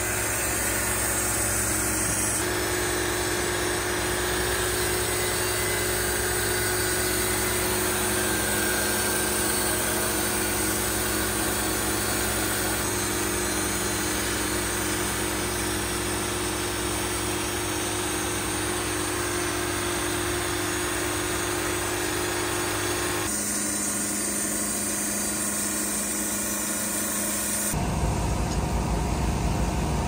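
Wood-Mizer LT70 portable band sawmill running steadily as it saws a log, engine and blade together, with a steady high whine on top that drops away about 23 seconds in. Near the end a different low rumbling noise takes over.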